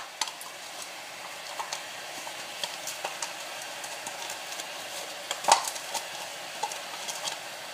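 Water sizzling in a hot non-stick frying pan on high heat, a steady hiss with scattered small crackles and ticks, and a sharper click about five and a half seconds in.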